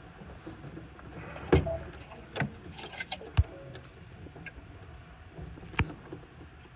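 Scattered sharp clicks and knocks, about half a dozen, from hands and tools working on furnace parts.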